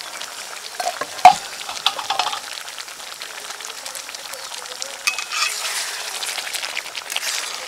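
Egg curry bubbling and sizzling in a metal pot, with a single loud knock about a second in. Near the end a metal ladle stirs through the thick gravy.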